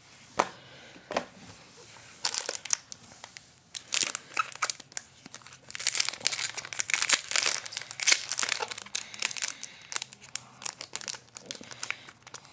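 Foil wrapper of a trading-card pack crinkling in irregular crackling bursts as it is handled and torn open by hand. It is quiet for the first two seconds, then the crinkling comes thick.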